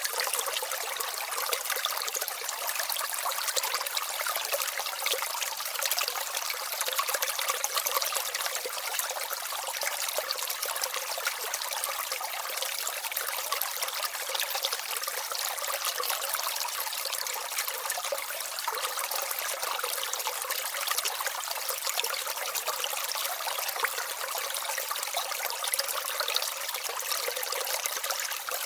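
Small mountain brook babbling and trickling steadily over stones.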